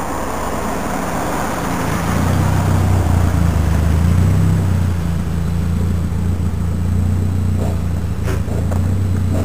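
A car drives past close by on the road. A steady low engine hum builds about two seconds in and carries on after the car has gone.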